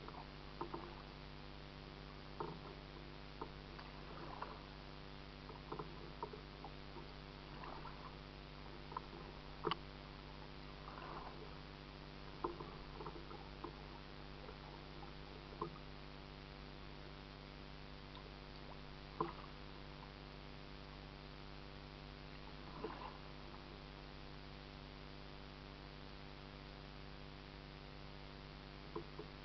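Kayak paddling heard from a camera fixed to the hull: scattered soft knocks and light splashes at irregular intervals as the paddle dips and bumps the kayak, over a steady low hum.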